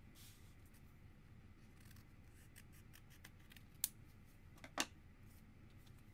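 Scissors cutting a paper sticker sheet: faint light ticks of handling, then two sharp snips about a second apart a little past the middle.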